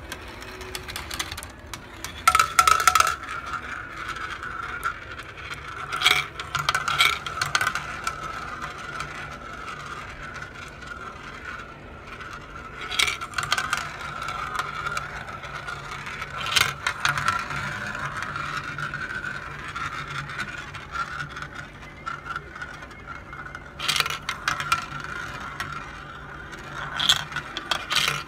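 Glass marbles rolling along plastic track and circling in plastic funnel bowls: a steady rolling rumble, with sharp clacks every few seconds as marbles knock against the track and each other.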